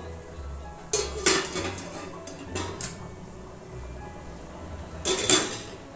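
Steel plate lid and ladle clattering on an aluminium cooking pot: a clatter about a second in, a couple of lighter clinks near three seconds, and another loud metal clatter about five seconds in.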